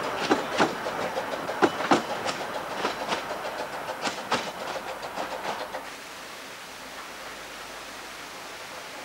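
Narrow-gauge train's coach wheels clicking over rail joints, an irregular run of sharp clicks that fades as the train draws away. About six seconds in this gives way to the steady rush of a small waterfall.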